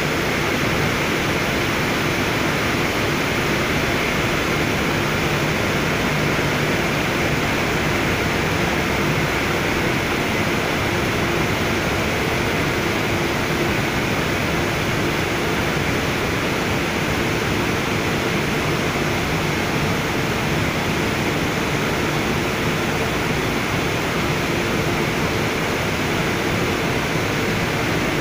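Steady noise of running industrial plant machinery: an even rushing sound with faint steady hums in it.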